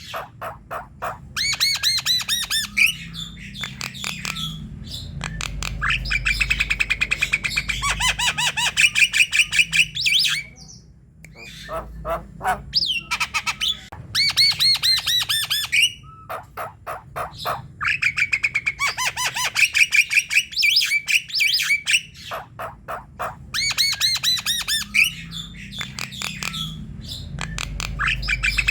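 Javan myna (jalak kebo) singing in long bouts of fast, harsh repeated notes, with short pauses between bouts.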